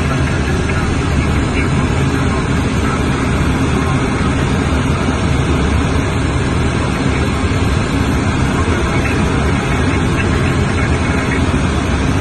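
Steady cockpit noise of a Cessna Citation M2 twin-turbofan business jet in flight: airflow rushing over the cockpit and windscreen with a low engine drone, unchanging throughout.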